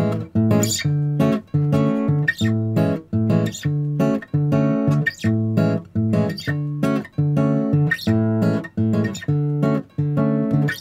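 Background music: guitar playing a steady, repeating plucked pattern.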